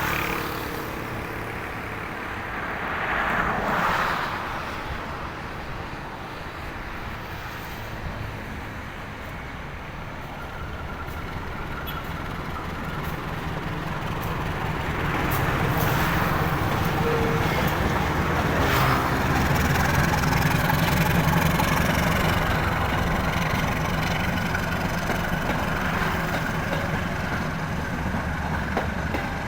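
Diesel locomotive engine running, its rumble building steadily louder through the middle, with a short hiss about three seconds in.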